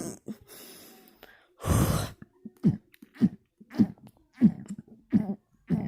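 A person burping with the mouth closed: a long breath and a loud exhale in the first couple of seconds, then a quick, regular run of about six short, low burps, roughly two every second.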